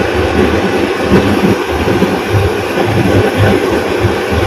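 A kitchen appliance's fan running with a steady rushing noise and a low rumble.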